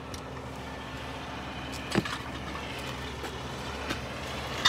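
A tow truck's engine idling steadily, with a sharp knock about two seconds in and a couple of lighter clicks near the end.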